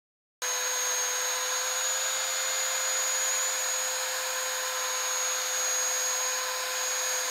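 Drill spinning a 3-inch sanding pad with 400-grit sandpaper, wet-sanding a plastic part with soapy water. It starts suddenly just after the beginning: a steady motor whine with a high whistle over a constant rush of sanding noise.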